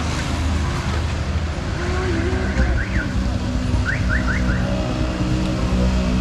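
Street traffic: a motor vehicle's engine running close by, steady throughout, with a few short, high rising chirps in the middle.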